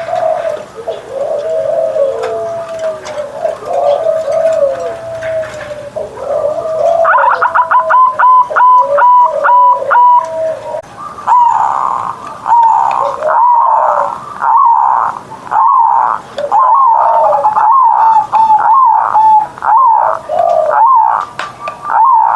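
Zebra dove (perkutut) cooing in wavering notes, then about seven seconds in switching to a higher, fast staccato run of notes followed by quick repeated coos.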